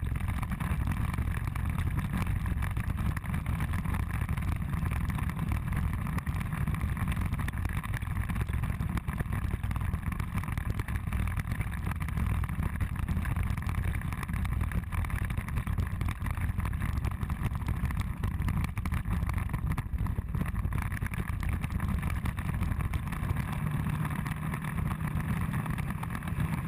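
Scooter riding along a road: a steady low rumble of engine and wind.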